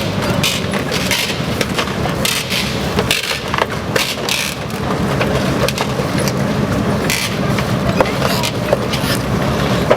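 Panzer IV Ausf. G tank's Maybach HL 120 V12 petrol engine running steadily while the tank drives, with its steel tracks clattering and clanking in quick irregular knocks.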